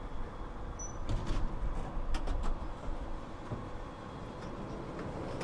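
Tram at a stop: a few sharp clicks and knocks over a low rumble, then the rumble slowly builds near the end as the tram starts to move off.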